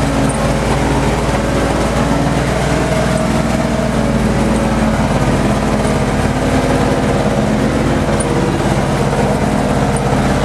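Engine of a Soviet military all-terrain truck running under load, heard from inside the cab as it drives up a rough dirt track; a loud steady drone whose note shifts about halfway through.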